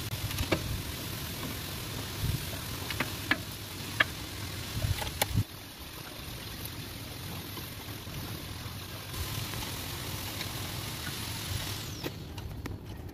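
Hand wrench clinking on the clutch cover bolts of a Hino F21 engine, a handful of sharp metal knocks in the first five seconds and a few more near the end, over a steady background hum.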